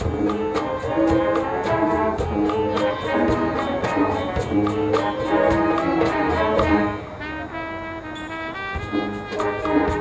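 Marching band playing: brass and drumline come in loudly all at once, with a steady beat of drum hits under the horns. The music drops back about seven seconds in and swells again near the end.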